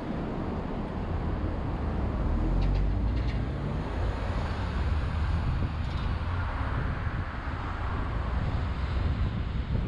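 Car driving on the road: a steady rumble of tyre and wind noise, heaviest in the low end and a little louder from about two seconds in.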